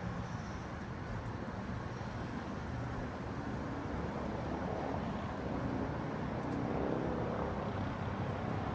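Outdoor street ambience: a steady rumble of road traffic that swells a little around the middle.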